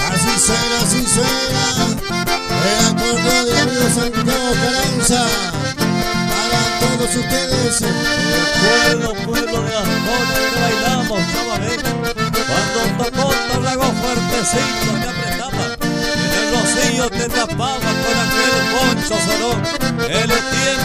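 Live instrumental passage: two accordions playing a lively melody together, backed by acoustic guitar, over a steady beat.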